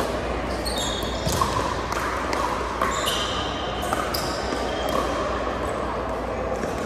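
Pickleball rally: paddles strike the plastic ball several times with sharp pocks, and sneakers squeak on the hardwood floor, echoing in a large gym. A low murmur of spectator chatter runs underneath.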